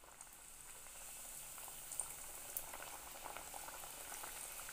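Mandazi dough pieces deep-frying in hot oil: a steady bubbling sizzle that grows a little louder in the first second as the pieces go in, with a few small pops about two seconds in.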